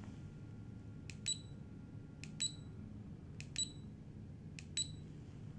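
Four presses of the SELECT button on a Nitto Kohki brushless electric screwdriver's control panel, a little over one a second. Each press is a small click followed at once by a short, high beep, stepping the setting to the next function number.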